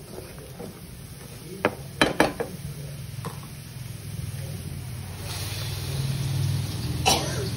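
Wooden spatula stirring and knocking against a nonstick pan, with a few sharp knocks about two seconds in, as blended spice paste fries and sizzles in hot oil. A low steady hum builds underneath in the second half.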